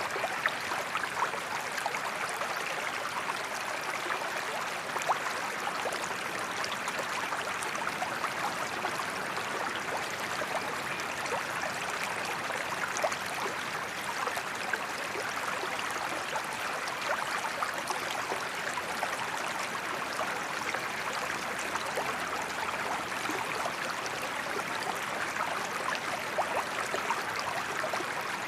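Small forest creek running steadily, water babbling and splashing over stones with many small, quick splashes.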